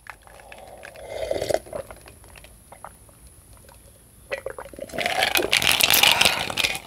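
Drinking ginger ale with ice from a glass jar: soft sips and liquid sloshing, with a louder stretch of liquid noise in the last two seconds.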